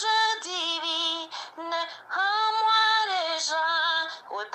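A woman singing a French hymn solo, holding long notes with vibrato, with brief breaths between phrases.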